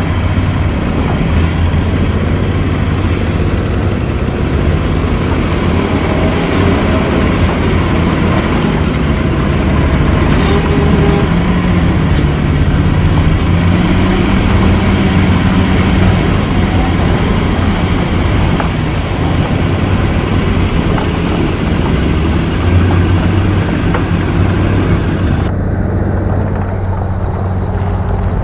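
Heavy diesel engine of a bulldozer or dump truck running steadily, its pitch rising and falling a little in the middle. Near the end the higher part of the sound drops away abruptly.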